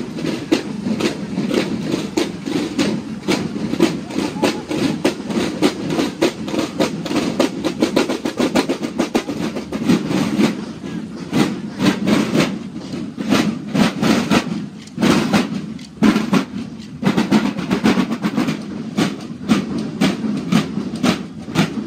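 A marching drum corps' snare drums beaten in a fast, steady marching cadence of closely spaced strikes.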